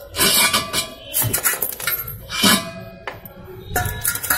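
Steel parts clinking and clanking in about four separate bursts, each with a brief metallic ring, as loose metal pieces are handled: the steel rod and fittings through a wheel hub, and steel pieces picked up off the floor.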